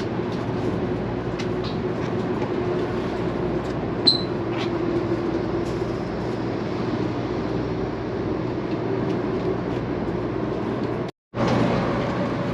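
Steady running noise inside a high-speed train carriage: an even rumble and hiss with a faint steady hum, and one short high beep about four seconds in. The sound drops out for a moment near the end.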